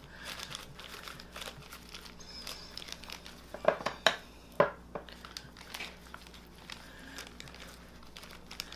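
Plastic bag and disposable gloves crinkling as gloved hands work garlic paste under a raw chicken's skin, with three sharper crackles a little under halfway through.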